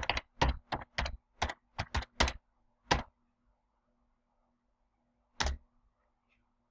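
Typing on a computer keyboard: a quick run of about a dozen keystrokes over three seconds, then a single further click about five and a half seconds in.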